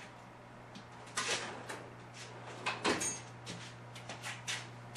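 Small metal hand tools being handled: scattered light clicks, clinks and scrapes, with a short metallic ring about three seconds in, over a steady low hum.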